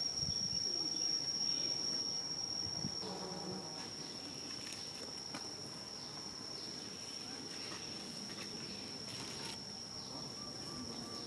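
Insects droning: one steady, high-pitched shrill tone, with a few faint rustles and clicks over it.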